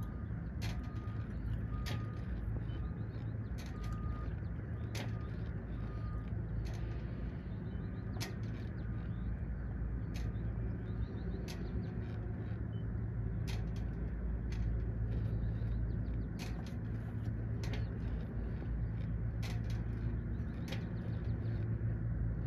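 Boat engine running with a steady low hum. Sharp clicks come irregularly, about once a second, and a short high beep repeats several times during the first few seconds.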